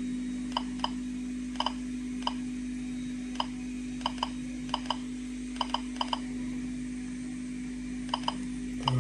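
Geiger counter dosimeter clicking irregularly, about two clicks a second, each click a detected particle from a weak potassium source held close to it. A steady low hum runs underneath.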